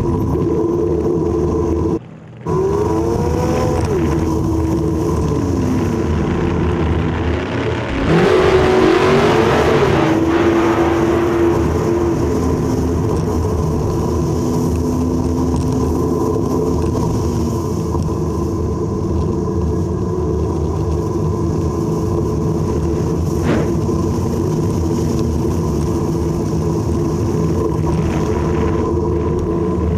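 Car engine running through traffic, its pitch rising and falling as it revs and changes gear. It is heard from a GoPro mounted on the car's front. The sound cuts out briefly about two seconds in, and a louder rush of wind and engine comes about eight seconds in.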